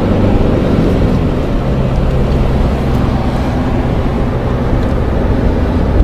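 Car engine and tyre noise heard from inside the cabin while driving, a steady low rumble with an engine hum that steadies about a second and a half in.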